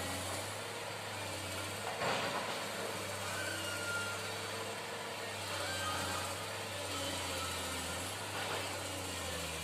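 Heavy diesel engine of earthmoving machinery running steadily with a low, even hum, with a brief louder moment about two seconds in.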